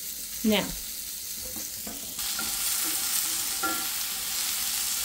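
Fajita vegetables (sliced bell peppers and onions) sizzling in oil in a frying pan while being stirred with a wooden spoon; the sizzle gets louder about two seconds in.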